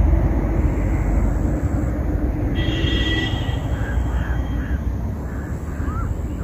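A steady low rumble, with a crow cawing in a rapid series of caws from about halfway through.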